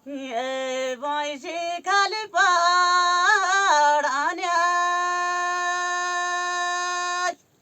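A single voice singing unaccompanied: a short ornamented phrase with bending, broken notes, ending on one long held high note of nearly three seconds that cuts off sharply.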